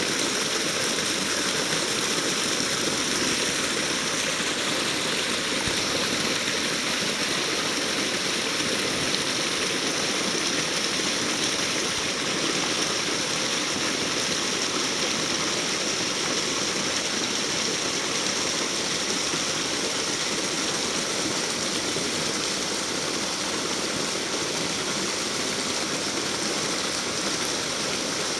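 Shallow creek water flowing and splashing over a small drop and through riffles, a steady sound.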